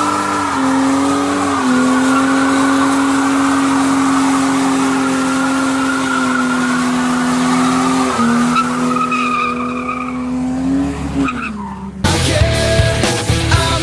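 BMW E30 doing a burnout: its engine held at high revs with the rear tyres spinning and squealing, the pitch dipping slightly twice, rising briefly near the end and then cutting off about eleven seconds in. Rock music starts abruptly just after.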